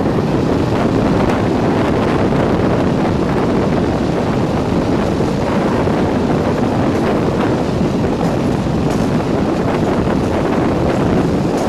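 Steady running noise of a locomotive-hauled train at speed, heard from a coach window, with wind buffeting the microphone; the Class 37 diesel locomotive is working at the head of the train.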